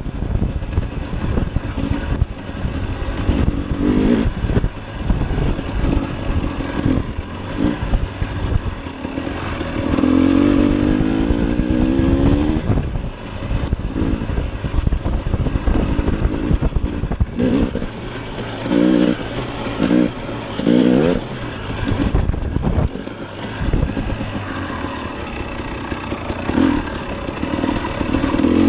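Dirt bike engine running and revving up and down as the bike is ridden over rough ground, under a heavy low rumble. A long rising rev comes about ten seconds in, and shorter blips follow later.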